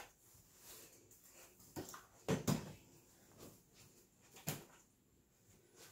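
A few short knocks and bumps, loudest about two and a half seconds in, with another near the middle, and quiet between.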